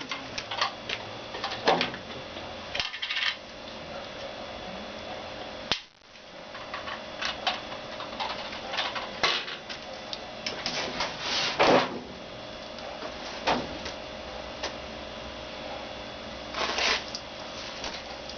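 Irregular metallic clicks and knocks of hand tools and wheelchair parts while a wheel is taken off the wheelchair's fork, with a louder clatter about twelve seconds in and again near the end.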